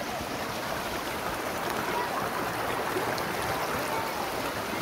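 Shallow mountain stream rushing steadily over rocks and small drops, a continuous even rushing of water.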